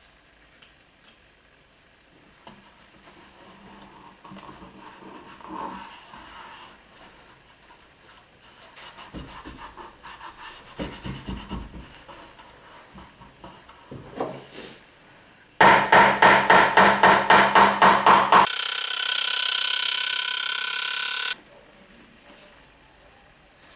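Hands rubbing and smoothing paper tape and veneer on a veneered wooden top: faint scraping strokes, with quick runs of strokes about ten seconds in. Near the end comes the loudest sound, a stuttering noise at about four pulses a second that turns into a steady noise for about three seconds and then stops suddenly.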